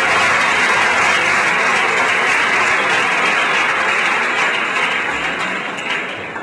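Audience applauding, steady at first and fading away over the last couple of seconds.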